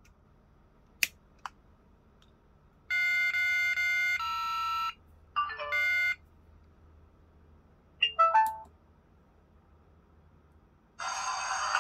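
Electronic sound effects from a Knight Rider KITT dashboard voice box replica's small built-in speaker as it powers up: two clicks, then a run of synthesized beeping tones and two short bursts of warbling computer chirps. Near the end a louder, noisier electronic sound starts.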